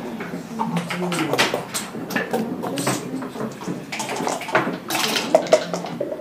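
Backgammon equipment being handled: repeated clicks and clatter as the doubling cube is set down, then dice rattling in a dice cup.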